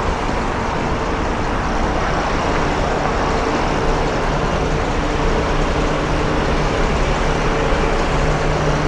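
Steady city street traffic noise: a continuous hum of vehicles with a low engine drone underneath.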